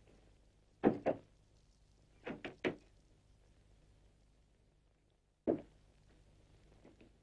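A few dull knocks and thumps in a small room: two about a second in, three quick ones around two and a half seconds in, and one more about five and a half seconds in, over the faint steady hum of an old film soundtrack.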